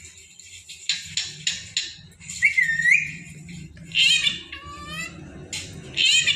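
Pet parrot calling: a quick run of short chirps about a second in, a wavering whistled note, then two louder harsh calls with falling pitch, about four and six seconds in.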